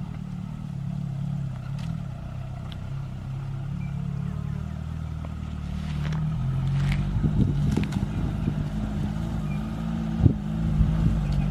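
Suzuki Sierra 4x4's engine running steadily on the move, getting a little louder about six seconds in, with a few knocks and a sharp thump about ten seconds in.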